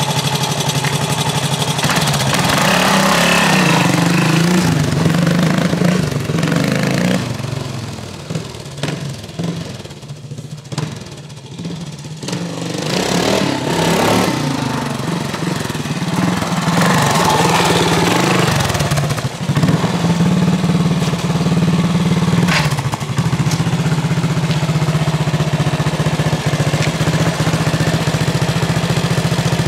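1978 Suzuki DR370C's four-stroke single-cylinder engine running through an aftermarket rear silencer. It is revved as the bike rides off, fades with distance, grows louder again as the bike returns, then settles to a steady idle for about the last ten seconds.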